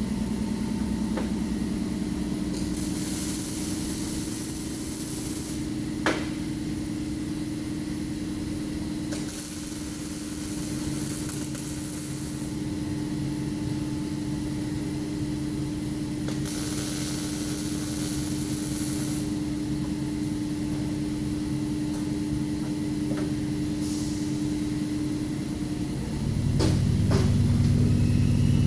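MIG welder arc sizzling in short runs of about three seconds each, over a steady machine hum. A single sharp click about six seconds in, and a louder, deeper hum comes in near the end.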